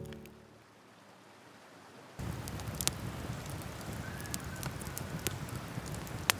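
Intro music fades out, then about two seconds in a wood campfire's crackling and popping cuts in abruptly over a steady rush of river water, with one sharp pop near the end.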